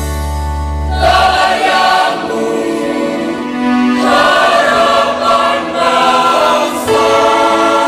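Large group of graduates singing their polytechnic's march together, holding long chords that change every second or two.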